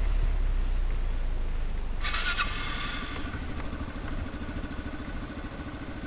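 Dirt bike engine running and easing off, its level falling as it settles to a slow, even pulsing beat from about three seconds in. A brief higher-pitched sound comes about two seconds in.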